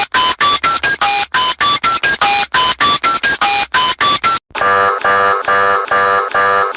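Electronic emergency alert tones. A fast run of short beeps, about five a second, steps upward in pitch and repeats; after about four and a half seconds it cuts abruptly to a buzzy pulsed alarm tone sounding about twice a second.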